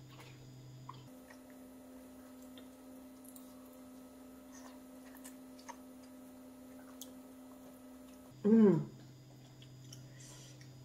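Faint eating of instant noodles with chopsticks, with a few small clicks over a steady low hum. Near the end comes one short, loud "mmm" of appreciation that falls in pitch.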